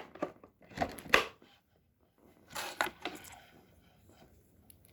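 A few light knocks and clatters of objects being handled, about a second in and again near the three-second mark.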